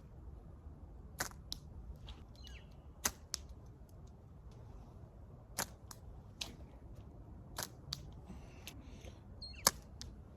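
Rubber-band slingshot attachment on a multitool being handled and tried out: about eight scattered sharp clicks and snaps, the loudest near the end.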